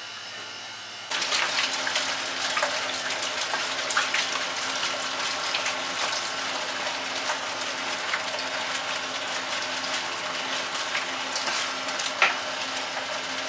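Hands and a metal scraper squishing and crumbling cocoa powder into buttery pineapple-bun crust dough on a work table: a dense crackly scrunching that starts suddenly about a second in, over a steady machine hum, with one sharp knock near the end.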